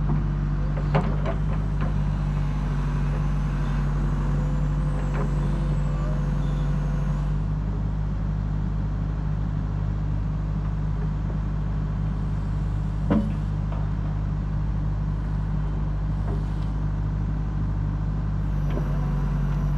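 Engine of a bucket loader running steadily while its bucket presses a gate post down into the ground, with a couple of sharp knocks.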